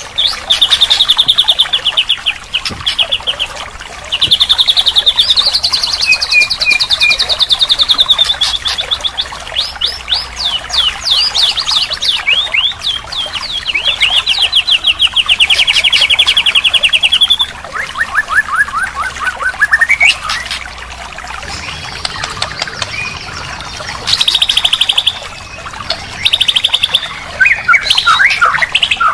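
White-rumped shama song: loud, varied phrases of fast repeated notes and trills, with a quick run of falling notes a little past the middle.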